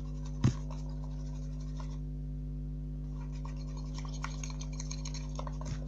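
Faint scratching and scraping of the glue, toothpaste and sugar slime mixture being stirred in a bowl, with one soft knock about half a second in, over a steady electrical hum.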